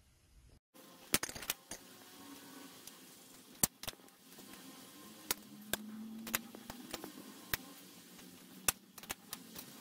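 Hobby nippers snipping plastic model-kit parts off their runners: about a dozen sharp clicks at irregular intervals over a faint steady hum.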